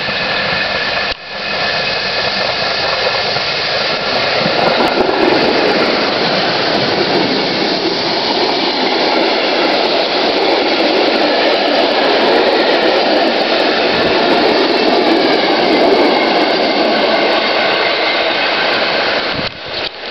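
Steam-locomotive-hauled passenger train passing close by, a loud continuous rush of locomotive and coaches rolling on the rails. It builds about four seconds in and falls away near the end as the train draws off.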